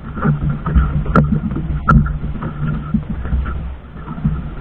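Engine of a small outrigger fishing boat running steadily, a low hum under wind and water noise, with two sharp knocks about a second and two seconds in.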